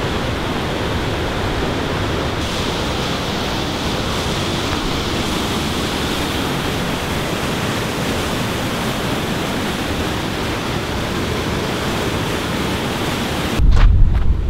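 Whitewater of a mountain creek cascading over boulders: a steady rushing roar. Near the end a loud low rumble on the microphone cuts in over it.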